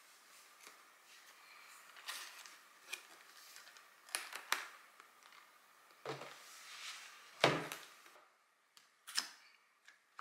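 A cardboard gift box handled on a wooden tabletop: scattered taps, knocks and cardboard rustles as it is set down and opened, the loudest a single heavier thump about seven and a half seconds in.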